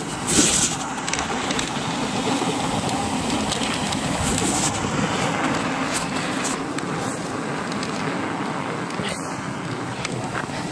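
Dogsled runners sliding over a packed snow trail at speed: a steady rushing, scraping noise with a few knocks and rattles from the sled's frame, the loudest just after the start.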